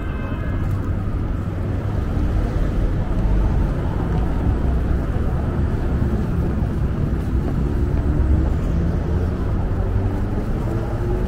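Steady low rumble of city road traffic, with no single event standing out.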